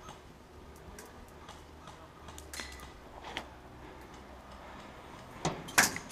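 Airsoft gunfire: scattered faint clicks, then two loud sharp snaps about a third of a second apart near the end.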